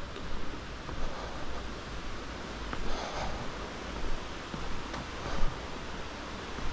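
Wind buffeting the microphone with steady rustling, and a louder rustle about three seconds in along with a few soft knocks.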